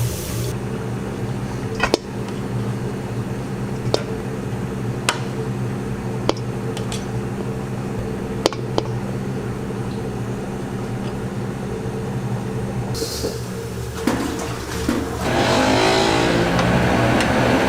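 Steady low mechanical hum with a few sharp clicks and taps. About fifteen seconds in, water starts running from a tap into a sink or container, rising in pitch as it fills.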